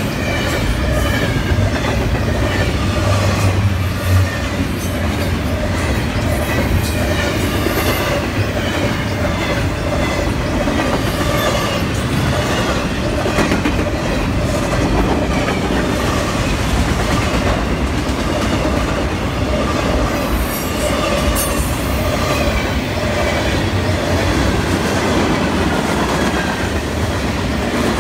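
A mixed freight train's cars (double-stack container cars, autoracks and boxcars) rolling steadily past: continuous wheel-on-rail noise at an even, loud level.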